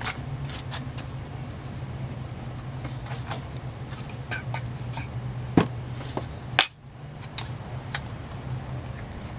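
Scattered knocks and clicks, two louder ones a second apart near the middle, over a steady low hum.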